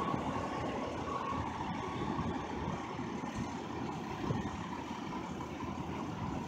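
Steady low rumble of street traffic and a Siemens S200 light rail train moving off along the track. A faint high whine fades out about a second in.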